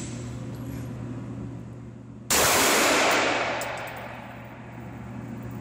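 A single 9mm pistol shot about two seconds in, with a sharp onset and a long echoing tail that fades over about a second and a half in the hard-walled indoor range.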